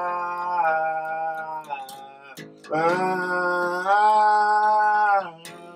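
A man's voice singing two long held notes without words, the second stepping up in pitch partway through, over a fingerpicked Fender acoustic bass guitar.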